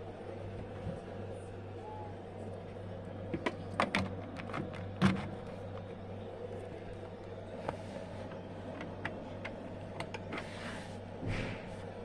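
Handling knocks and bumps as a DeLonghi espresso machine and its power cord are moved about on a mat: a quick run of sharp knocks from about three and a half to five seconds in, the loudest near five seconds, then a few lighter clicks and a brief rustle near the end, over a steady low hum.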